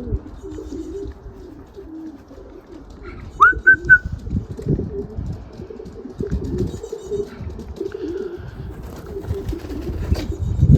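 Racing pigeons cooing, a continuous wavering murmur of overlapping low coos. About three and a half seconds in comes a short, loud rising whistle with a couple of quick notes.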